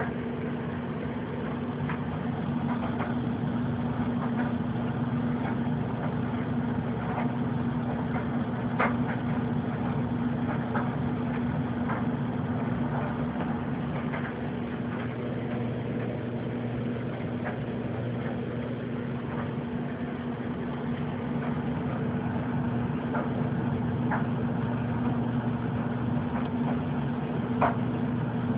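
A steady low machine hum, with faint scattered clicks throughout.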